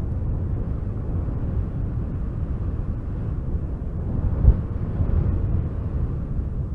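Wind blowing as a low, steady rumble, with a brief stronger gust about four and a half seconds in.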